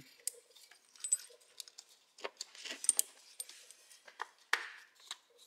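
Small metal parts clinking and clattering as they are handled: irregular sharp clicks with a few short, light metallic rings.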